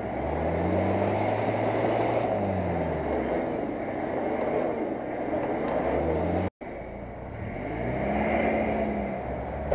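A stuck Nissan Patrol's engine is revved hard, again and again, rising and falling in pitch as it strains in deep mud against a tow line. After a sudden cut, another off-road engine revs up and down as a UAZ-469 is pulled out of the mud.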